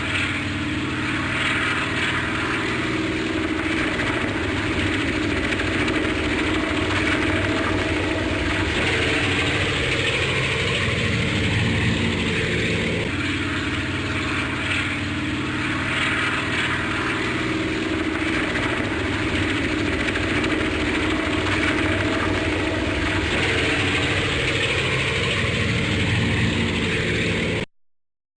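Helicopter running steadily, its engine and rotor making a continuous drone. The same stretch restarts about halfway through, and the sound cuts off suddenly near the end.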